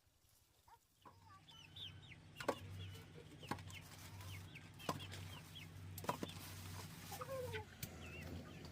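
Chickens clucking, with many short high calls, a few sharp clicks and a steady low hum, all starting about a second in.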